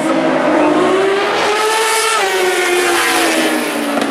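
Several 1000cc four-stroke superbike racing motorcycles running hard at high revs, their engine notes overlapping. The pitch climbs over the first couple of seconds, then falls away as they go past.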